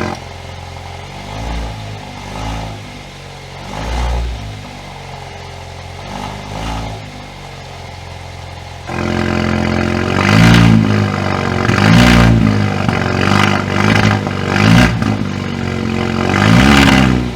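Alfa Romeo Giulia Veloce's 2.0-litre turbocharged four-cylinder exhaust, blipped through a handful of short revs over a steady drone. About nine seconds in the exhaust suddenly gets much louder, as with the Guerrilla Bypass cut-out valve opened past the rear mufflers, and the revving goes on with several sharp blips.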